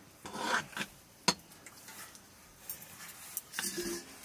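Metal ladle stirring thick maize-flour dough (dhido) in a metal pot: soft scraping with a few clinks of the ladle on the pot, the sharpest about a second in.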